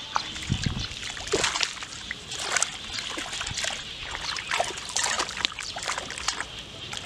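Hands splashing and groping through shallow muddy water over a field's mud bottom: irregular small splashes and sloshes.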